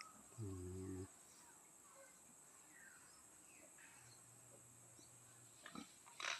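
Quiet ambience with a few faint high chirps. About half a second in comes a brief low hum of steady pitch, lasting just over half a second.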